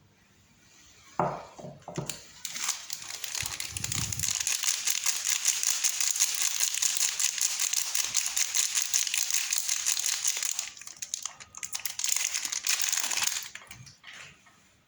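A soap bar's wrapper being unwrapped: a few soft knocks, then about eleven seconds of continuous crinkling of the packaging, which dies away near the end.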